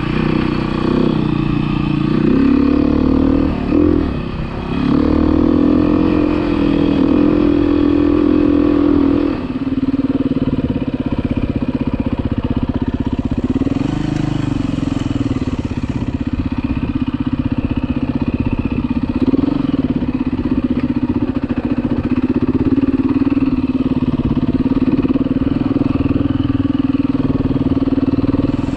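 Dirt bike engine running under the rider at trail speed, its revs rising and falling with a brief drop in throttle about four seconds in, then holding steadier at a lower pitch from about ten seconds on.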